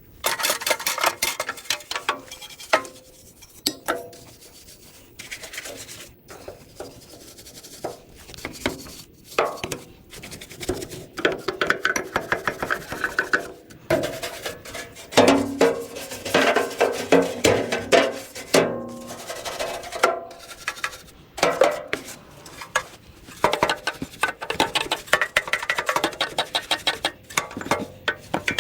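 Hand scrubbing and scraping of caked-on grime off a chipper shredder being cleaned with degreaser. It comes as quick, uneven rubbing strokes in runs, broken by short pauses.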